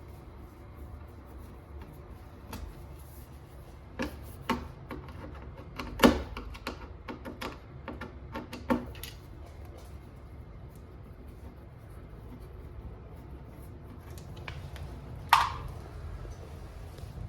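Scattered clicks and knocks, a few in the middle and a sharper one near the end, over a steady low hum.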